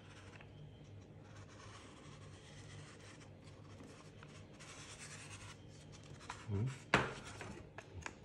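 Crossbow buttstock tube rubbing and scraping against the polymer body as it is turned by hand to find the start of the thread. A single sharp knock comes about seven seconds in.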